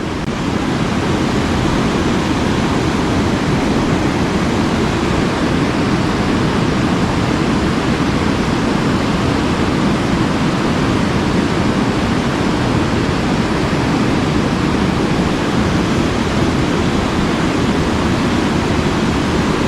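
Tall waterfall pouring into a deep pool: a loud, steady rush of falling water.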